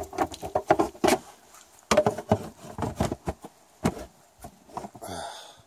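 Lids being handled and pressed down onto black plastic feed bins: a quick run of sharp plastic knocks and clicks, in two clusters.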